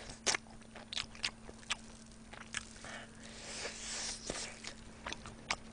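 Close-up eating sounds of someone biting and chewing saucy grilled meat: scattered wet mouth clicks and smacks, with a longer spell of wet chewing noise about three to four seconds in. A faint steady hum runs underneath.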